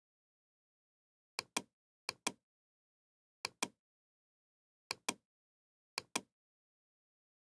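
Computer mouse clicking: five pairs of sharp clicks at uneven intervals, with silence between them.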